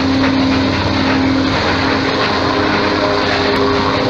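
Light helicopter flying low over the sea: a steady engine and rotor drone with a constant hum.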